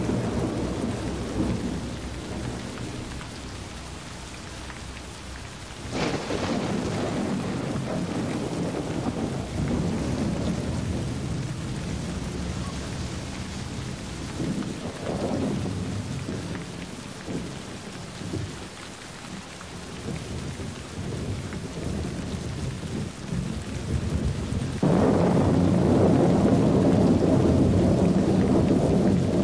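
Rain falling during a thunderstorm, with rolling thunder: a sudden peal about six seconds in and another near the end, each followed by a long low rumble.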